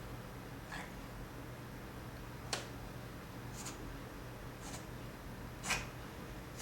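Cat sneezing in a run of five short, sharp sneezes about a second apart, the last the loudest.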